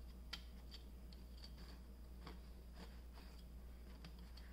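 Faint, irregular clicks and taps of 3D-printed plastic rings being turned and fitted together by hand.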